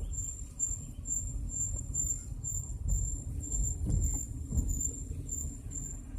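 Low rumble of a 2007 BMW 116i, with a thin high-pitched chirp repeating about twice a second: the strange noise coming from the rear wheel area.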